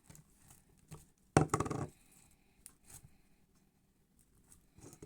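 Sticky slime being handled, with faint scattered clicks and about a second and a half in a short loud burst of crackling squelches.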